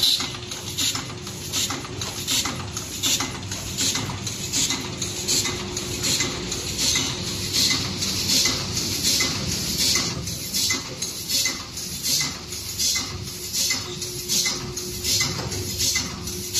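Automatic gyoza-making machine running, with a hissing clack repeating evenly about twice a second as it forms dumplings, over a steady hum.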